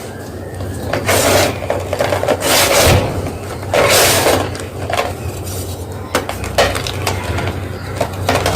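Soft gym chalk crunching and crumbling in a series of crisp crunches, with three longer ones in the first half and shorter ones after.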